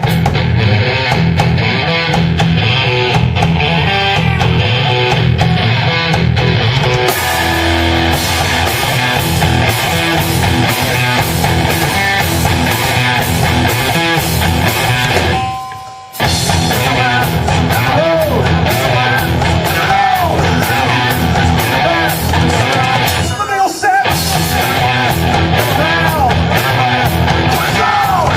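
A loud live rock band playing a heavy song with distorted electric guitars, bass and drums. About halfway through the band drops out for a moment, then crashes back in.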